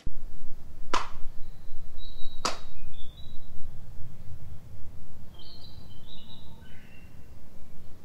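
Two sharp hand claps about a second and a half apart: the two claps of Shinto shrine worship (two bows, two claps, one bow). Under them runs a steady low rumble of wind on the microphone, and small birds chirp briefly between and after the claps.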